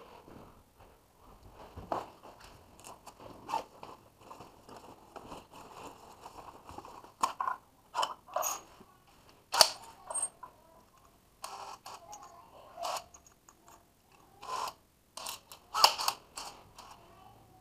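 Scattered clicks, knocks and rustling of hand tools being handled, as a drill bit is pulled from its plastic holders and tools are taken from a tool bag. The sharpest knocks come about ten seconds in and near the end.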